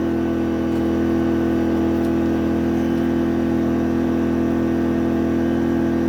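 Powerhorse 2300i inverter generator's small engine running steadily at a constant speed on its max-power throttle setting, freshly started and warming up.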